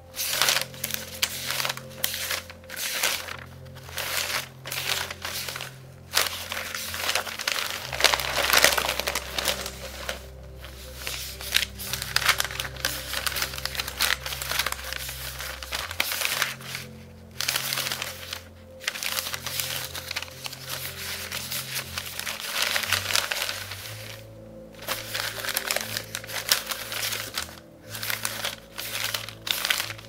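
Sunday newspaper pages rustling and crinkling as they are handled and turned while looking for coupons, in bursts with short pauses. Soft background music with slow low notes plays underneath.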